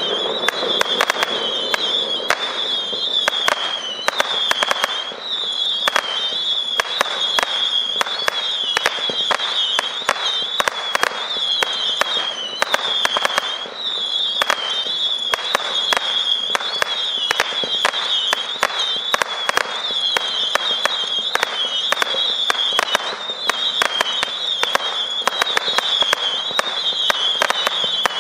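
Winda Star Spangled Saturn 440-shot saturn missile battery firing rapidly: a steady stream of sharp pops, several a second, under a continuous warbling whistle from the shots' whistling tails. It starts abruptly.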